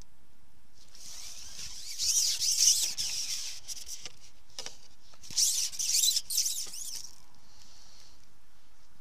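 Close rubbing and scraping right at the microphone, in two spells of about a second and a half each, with a fainter one after them.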